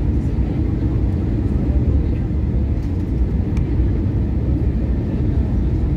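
Steady low rumble of an Airbus A320-233's IAE V2500 turbofan engines and rushing airflow, heard from inside the cabin during the descent on approach.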